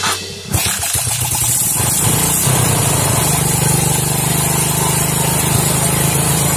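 Suzuki Smash's single-cylinder four-stroke engine being kick-started. It fires unevenly for about a second and a half, then settles into a steady idle.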